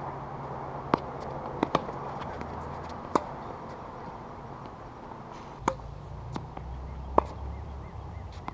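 Tennis balls struck by rackets and bouncing on a hard court during a rally: sharp pops about every one to two seconds, a few with a short ringing ping from the strings.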